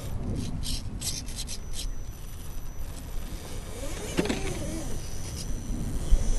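Axial SCX10 RC scale crawler picking its way over dirt clods: tyres scraping and crunching on clods and loose soil, with a run of small crackles in the first two seconds and a brief wavering whine about four seconds in.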